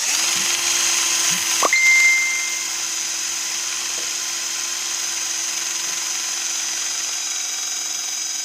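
Small electric power tool running at a steady speed, spinning a drawer knob against the edge of a leather sheath to burnish it. A brief high squeal of friction comes about two seconds in.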